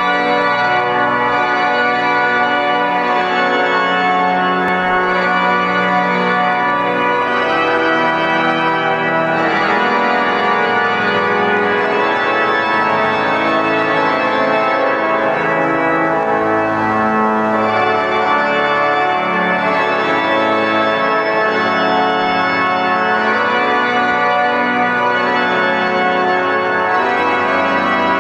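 Pipe organ playing sustained chords in a large reverberant church, full registration with many held notes over a bass line.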